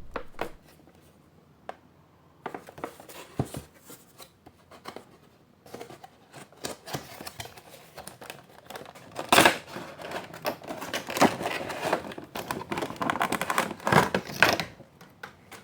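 A collectible figure's cardboard box and plastic packaging being opened and handled: irregular rustling, scraping and clicks. It starts about two and a half seconds in, with the loudest knock about nine seconds in.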